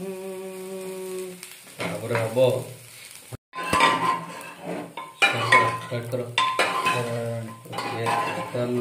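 Onions and dried red chillies frying in a steel pan and being stirred with a steel ladle, under a voice singing a tune. The sound cuts out completely for a moment a little over a third of the way in.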